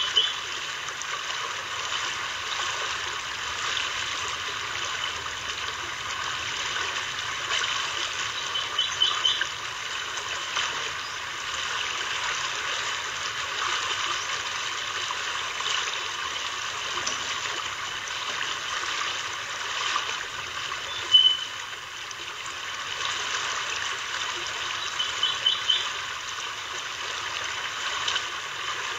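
Steady rushing of flowing water. Short clusters of high chirps break through it a few times.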